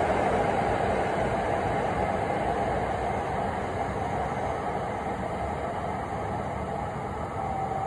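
Hokkaido Shinkansen high-speed train pulling out of the station and running away along the track, its running noise slowly fading as it draws off.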